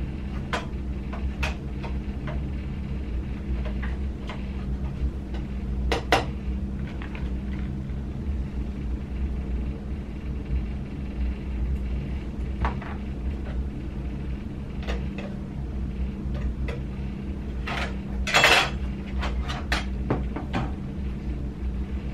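Hard plastic and small metal parts being handled: scattered clicks and clinks, a louder clatter about six seconds in and another around eighteen seconds, over a steady low hum.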